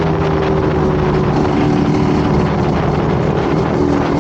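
Vehicle engine running steadily at a near-constant pitch, with a dense rushing noise over it.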